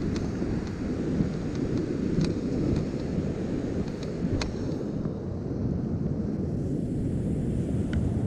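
Steady low rumble of wind buffeting the microphone over heavy surf on the shore, with a few faint sharp ticks scattered through it.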